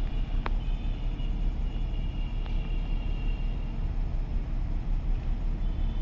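Diesel goods train rolling past: a steady low rumble that swells and dips in a regular rhythm, with two sharp clicks and a faint high squeal for a couple of seconds in the middle.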